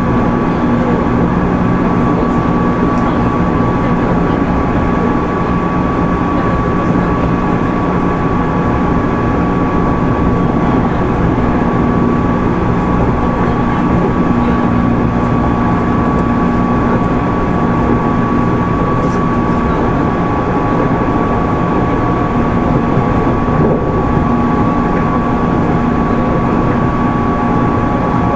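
JR 205 series 600 subseries electric train running at a steady speed, heard from inside the passenger car: a constant rumble of wheels on rail with a few held hum tones from the running gear.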